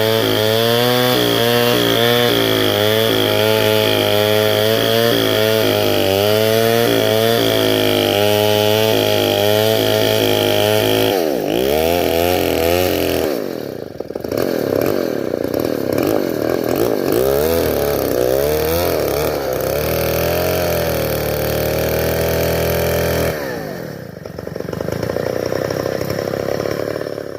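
Stihl 070 large two-stroke chainsaw running under load, ripping a durian log lengthwise into beams, its engine pitch wavering as it cuts. About halfway through, and again near the end, the engine speed drops and picks up again. The sound cuts off at the very end.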